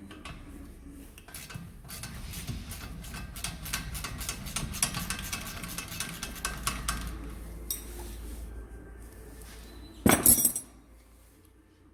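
Socket ratchet clicking rapidly as a 13 mm brake caliper bolt is undone, then a short loud clatter a little after ten seconds.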